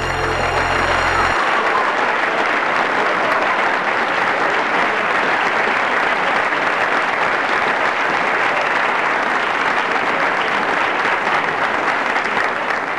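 A large theatre audience applauding, a dense, steady clapping. The last notes of background music end about a second in.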